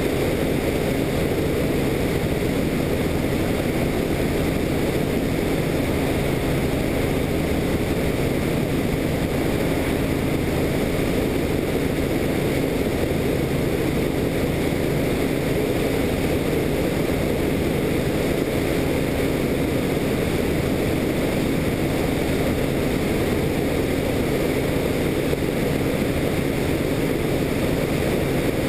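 Helicopter in flight, its engine and rotor making a steady low drone that does not change.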